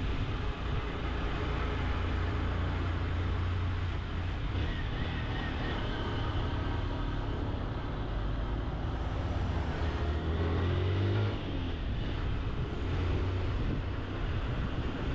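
Honda CG 160 Titan's single-cylinder four-stroke engine running steadily as the motorcycle climbs a mountain road, under a constant rush of wind and road noise. The engine note rises and then drops briefly about eleven seconds in.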